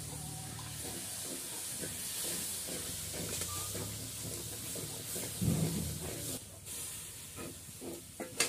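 Steady sizzling hiss from a hot iron wok over a wood fire. About halfway through there is a thump as a heap of rice is tipped into the wok, followed by clinks and scrapes of a metal spatula stirring it.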